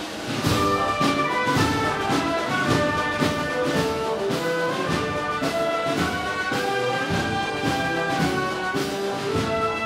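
Wind band of clarinets, saxophones and brass playing together, with several melodic lines of held and moving notes; after a brief dip at the start, the full band comes back in about half a second in.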